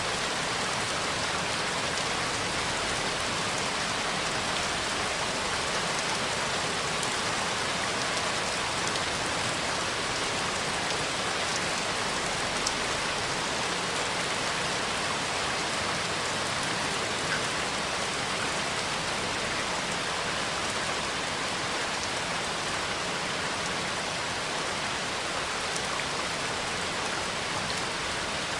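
Heavy rain falling steadily, an even hiss of drops on surfaces, with a couple of single louder taps standing out briefly.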